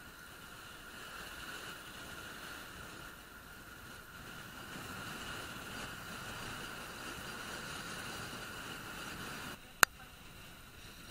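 Steady rush of wind and road noise from a road bike in motion, picked up by an action camera mounted on the bike, with one sharp click near the end.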